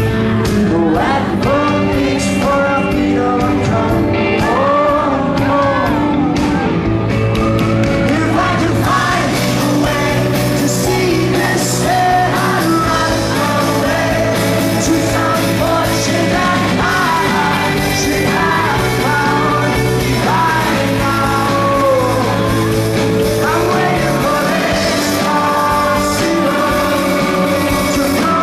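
Indie rock band playing live in a concert hall, with a male lead voice singing over guitars, bass and drums.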